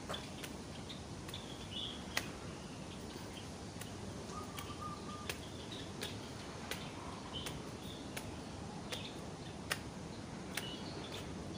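Aviary birds giving short chirps and calls, one held for about half a second midway, over a steady hiss. Sharp ticks come at a walking pace, about one every 0.7 seconds, from footsteps climbing concrete stairs.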